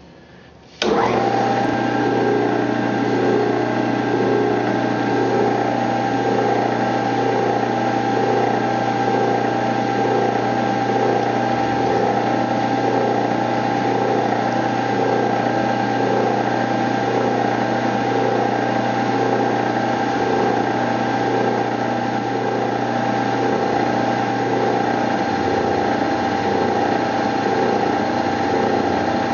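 Benchtop milling machine starting up about a second in and running steadily with a steady whine, while an end mill cuts a gas port into a 12L14 steel muzzle brake.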